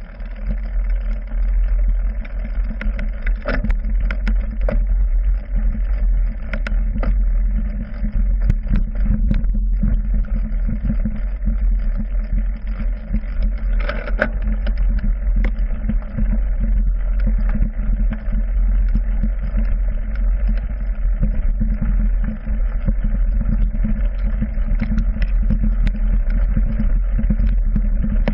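Mountain bike ridden over rough trail, heard through a handlebar-mounted GoPro Hero 3: a steady low rumble of tyres and frame, with frequent short knocks and rattles from the bike.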